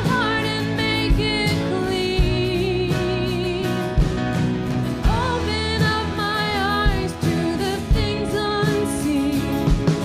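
A woman singing a worship song with vibrato over a live band, guitars and keyboard sustaining chords under a steady drum beat.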